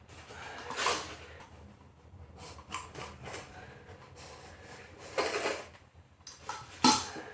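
Scattered scrapes, rustles and knocks of work on a vinyl lino sheet being trimmed and handled at its edge. The loudest come about a second in, around five seconds in and just before the end.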